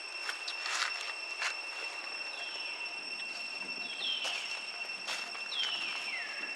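Three or four short, high animal calls, each sliding downward in pitch, over a steady high-pitched drone, with a few sharp clicks in the first two seconds.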